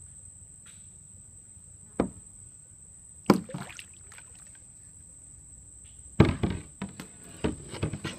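Steady high-pitched insect drone from the mangroves, with sharp knocks and splashes from the kayak: one about two seconds in, another a second later, and a cluster from about six seconds on.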